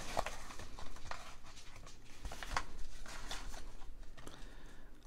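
Yellow paper mailing envelope being handled and searched: faint, scattered rustles and crinkles of paper as a carded pin is drawn out.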